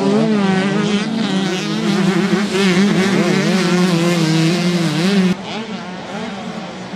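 Motocross bike engines revving hard as riders pass close, their pitch rising and falling with throttle and gear changes. About five seconds in, the near engine sound cuts off suddenly, leaving quieter engines further off.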